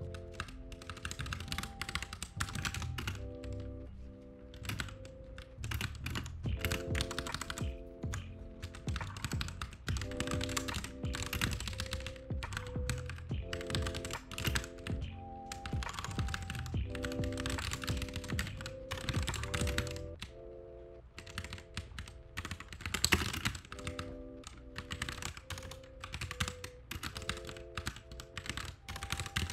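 Rapid typing on a computer keyboard: bursts of clicky keystrokes with short pauses, and one harder key strike about two-thirds of the way through. Soft lofi-style background music with slowly changing chords plays underneath.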